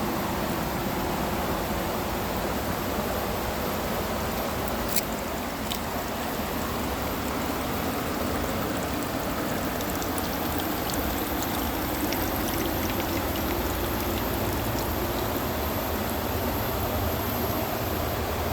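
Spring water flowing steadily over rocks, a continuous even rush. A sharp click comes about five seconds in, with a fainter one just after.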